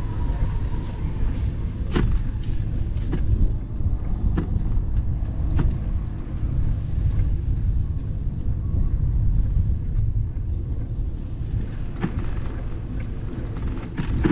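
Wind rumbling on the microphone of a camera on a moving bicycle, with scattered sharp clicks and rattles from the bike as it rolls along the path.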